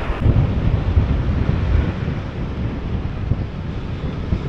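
Wind buffeting the microphone in an uneven low rumble, over the steady rush of rough sea surf.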